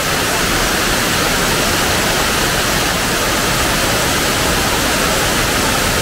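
A waterfall cascading down stepped, layered rock: a loud, steady rush of falling water that does not let up.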